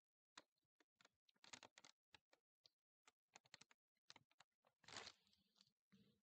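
Faint crinkling and clicking of a piping bag being squeezed and handled while a royal icing rose is piped onto a toothpick: many short, irregular ticks, then a longer rustle about five seconds in.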